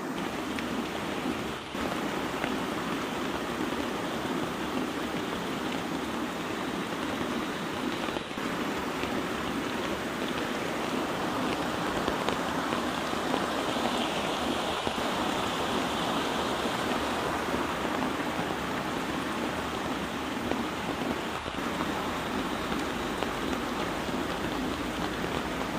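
Heavy rain falling steadily, a continuous even hiss of water on surfaces.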